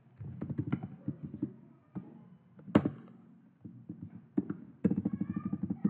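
Computer keyboard typing: runs of quick key clicks, with a sharper single clack nearly three seconds in.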